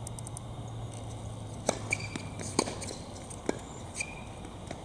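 Tennis ball being struck and bouncing during a serve and rally on a hard court: three sharp pops about a second apart, with fainter ticks between them.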